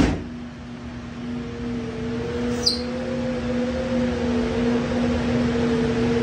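A steady low hum with a second, slowly wavering tone above it that comes in about a second in, and a brief high squeak near the middle. No knocking or banging is heard.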